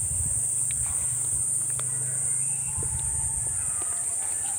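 Rural outdoor ambience: a steady high-pitched drone with a low rumble of handling noise on the phone's microphone, and a few faint clicks. A rooster begins to crow near the end.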